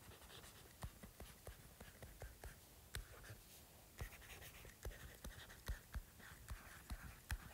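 Stylus writing on an iPad's glass screen: faint, irregular light taps, several a second, with soft scratching between strokes.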